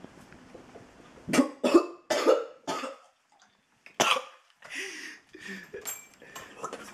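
A person coughing hard from the burn of a freshly eaten habanero pepper: four harsh coughs in quick succession, another about a second later, then quieter coughs and throat sounds.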